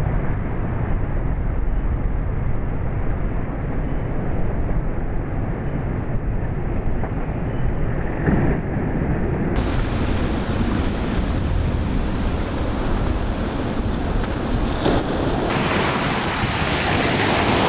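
Ocean surf washing in and breaking along a sandy beach as a steady rushing noise, with wind buffeting the microphone.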